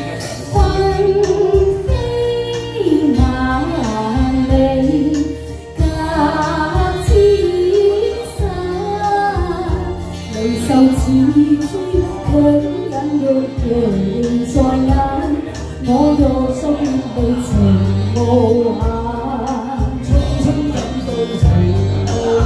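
A woman singing a Cantonese duet into a handheld karaoke microphone over a recorded backing track with a steady bass line.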